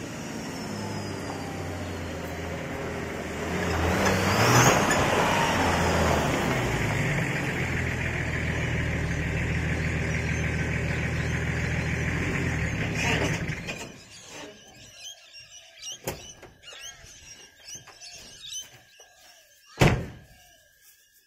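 Nissan RD28 straight-six diesel with compound turbochargers, running as the vehicle comes up, growing louder about four seconds in with a brief rising and falling whistle, then running steadily until it is shut off about thirteen seconds in. A single loud thump near the end.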